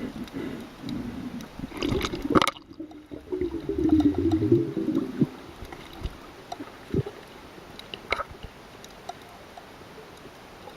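Sea water sloshing and gurgling, with scattered drips and knocks. A louder surge comes about two to five seconds in, then it settles to a quieter wash.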